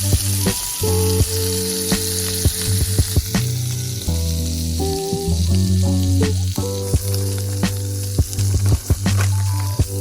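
Food sizzling as it fries in a pan, with occasional clicks, under background music with a strong bass line.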